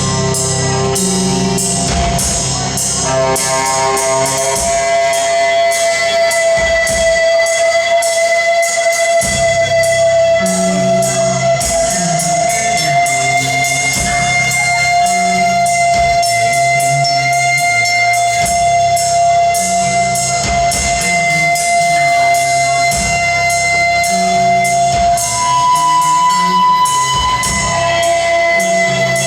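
Live rock band playing an instrumental passage: guitar over a steady drum-kit beat, with a long held note above and a moving bass line.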